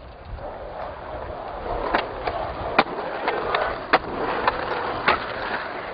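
Skateboards rolling on rough asphalt, with a string of sharp clacks from boards snapping and hitting the ground, starting about two seconds in.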